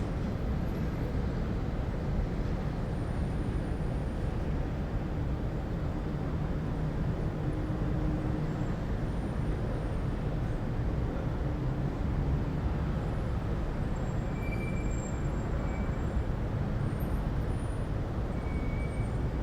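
City ambience: a steady low rumble of distant road traffic, with a few faint, brief high-pitched squeaks scattered through it.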